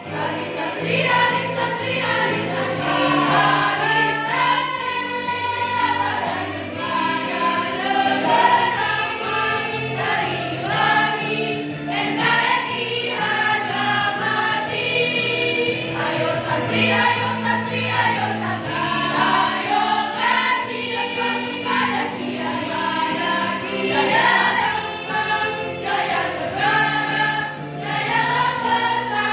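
Girls' choir singing, with steady low accompaniment notes held beneath the voices.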